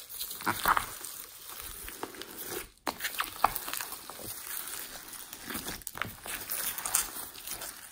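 Hands squishing and kneading a large mass of glossy slime mixed with foam beads, giving irregular sticky pops, squelches and crackles. The sound drops out briefly a little before the three-second mark.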